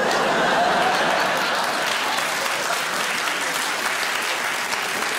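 Large theatre audience applauding, a steady wash of clapping that eases off a little near the end.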